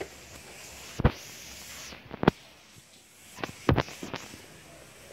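About six sharp knocks and taps, some in quick pairs: a phone being handled and bumped close to its microphone.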